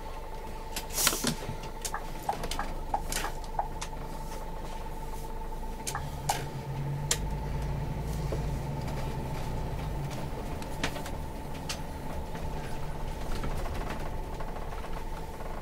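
Scania coach heard from inside the driver's cab while driving: a steady engine hum with a thin steady whine, the engine pulling harder from about six seconds in. Irregular clicks and creaks from the cab interior come mostly in the first few seconds, the kind of creaking the driver finds excessive on this bus.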